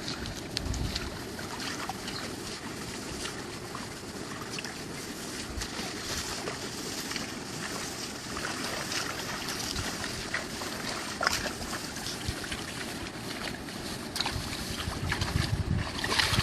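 Outdoor water and wind noise, with wind buffeting the microphone, and scattered small splashes and knocks throughout.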